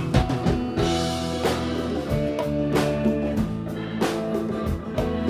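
A band playing a song, with guitar over held notes and a steady drum beat.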